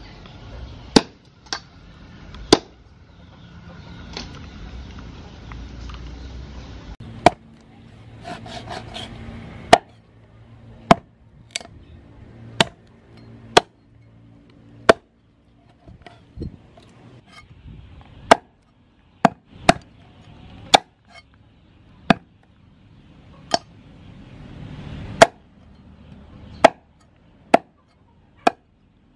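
Cleaver chopping a raw oxtail into segments on a thick wooden chopping block: sharp knocks at irregular intervals, roughly one a second, with a short cluster of lighter taps about nine seconds in.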